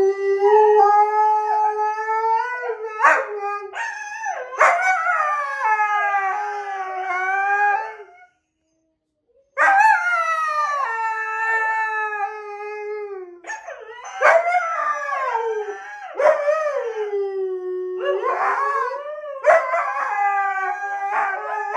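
Two huskies howling together in long, wavering howls, their voices overlapping, with a break of about a second roughly eight seconds in.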